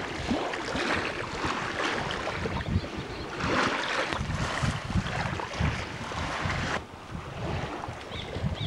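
Wind buffeting an outdoor microphone: a gusty, uneven low rumble over a steady hiss.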